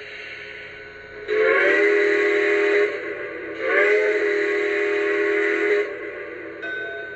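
Lionel Legacy RailSounds steam-locomotive sound from an O-scale C&O 2-6-6-2 Mallet model: a steady steam hiss, then two chime-whistle blasts about a second apart, the second one longer.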